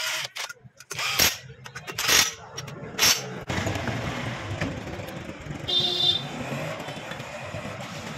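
Cordless impact wrench hammering in four short bursts as it runs nuts onto the clutch side of a Hero Splendor Plus engine. After that comes a steady low rumble, with a brief high tone about six seconds in.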